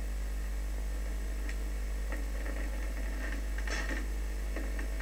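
Steady low electrical hum, with faint scattered ticks and a brief rustle about four seconds in.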